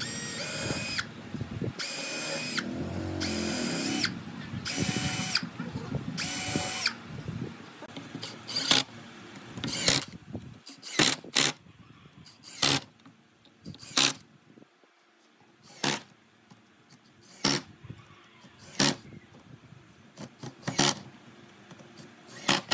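Cordless drill whining in five short runs as it bores pilot holes through a pine board. It is followed by about ten short, sharp bursts from an impact driver sinking screws into the holes.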